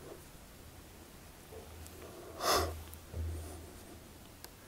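A man's single audible breath through the nose, picked up close by a lectern microphone about halfway through, followed by a soft low bump; otherwise the room is quiet.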